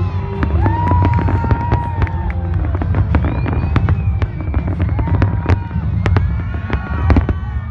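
Fireworks going off: a rapid, irregular series of sharp bangs and crackles over a steady low rumble, with a few long held tones sounding over them.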